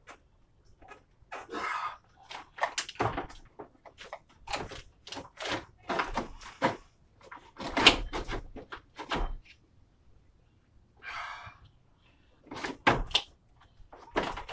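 Irregular plastic and metal knocks and clunks as a 2010 Nissan Maxima's radiator cooling fan assembly is worked down into place in the engine bay. The sharpest knock comes about eight seconds in, and there are short scraping rubs near the start and about eleven seconds in.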